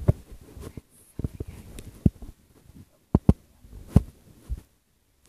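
Handling noise: irregular soft knocks and rubs, with a quick double knock a little after three seconds in and another knock about four seconds in.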